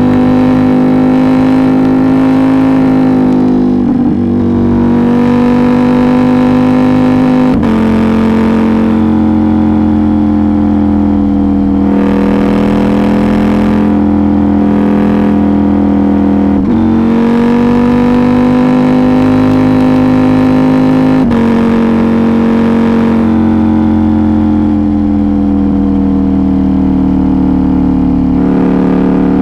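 KTM 790 Duke's 799 cc parallel-twin engine, still restricted and fitted with a decat and Arrow GP2 exhaust, running steadily under way. Its pitch drifts slowly and steps abruptly a few times.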